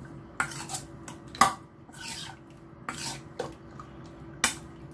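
Spoon stirring marinated chicken wings in a stainless steel mixing bowl: a handful of sharp clinks of spoon on metal bowl, the loudest about a second and a half in and again near the end, with softer scraping between them.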